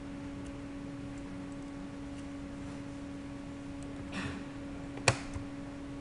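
Steady low electrical hum from the recording setup, with a brief soft rustle about four seconds in and one sharp click about a second later: a computer input click as the machine is logged in.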